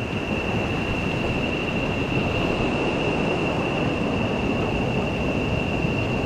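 Waterfall rushing, a steady loud noise of falling water, with a constant high-pitched tone running through it.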